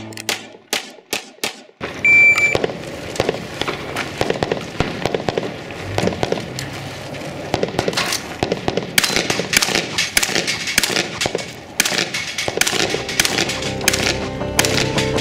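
Music fades out into a few separate gunshots. About two seconds in, a shot timer gives a short beep and a fast, steady string of gunshots follows for about ten seconds. Music comes back in near the end.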